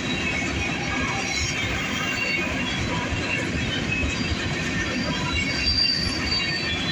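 Freight train of covered hopper cars rolling past: a steady rumble of wheels on rail, with high-pitched wheel squeal coming and going and sharpest about six seconds in.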